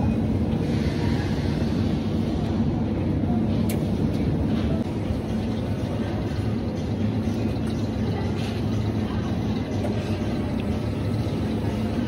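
Steady low rumbling hum of supermarket background noise, unbroken throughout.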